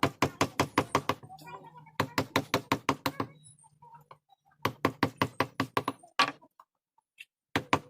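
Mallet driving a carving chisel into hardwood: quick runs of sharp taps, about six or seven a second, broken by short pauses, with a last few taps near the end.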